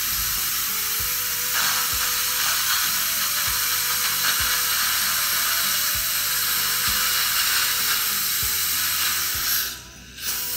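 High-speed dental air-turbine handpiece running against a tooth, a loud steady hiss that stops briefly near the end and starts again. Background music with a steady beat plays underneath.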